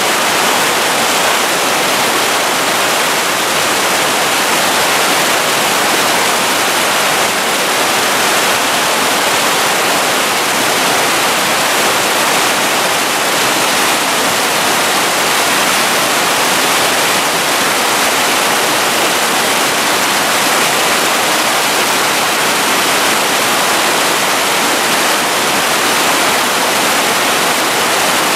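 Whitewater rapids rushing over and between boulders: a loud, steady, unbroken rush of water.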